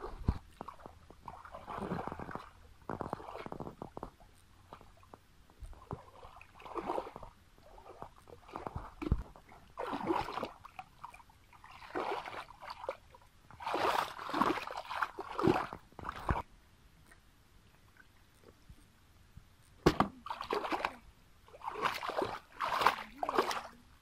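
Shallow muddy water splashing and sloshing in irregular bursts as hands and feet churn it, with one sharp knock late on.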